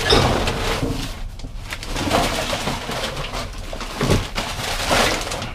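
Plastic trash bags and loose garbage rustling and crinkling as they are pushed aside by hand inside a metal dumpster, with several louder rustles and shoves along the way.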